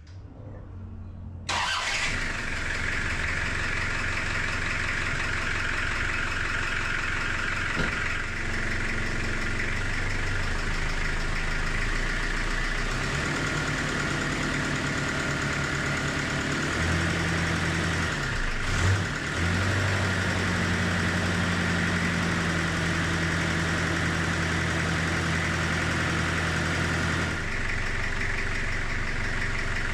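Toyota Hilux engine started about a second and a half in, then idling, with a freshly machined-flat exhaust manifold refitted to cure an exhaust leak. The idle speed steps up a couple of times, flutters briefly near the middle and drops near the end.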